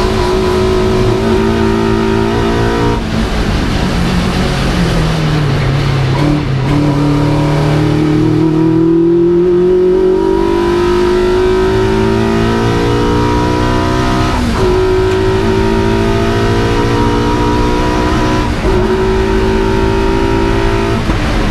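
Vauxhall Firenza special saloon race car's engine at racing speed, heard from inside the cabin. The revs fall for a few seconds, then climb steadily for about eight seconds, with sharp drops at upshifts about two-thirds of the way through and again near the end.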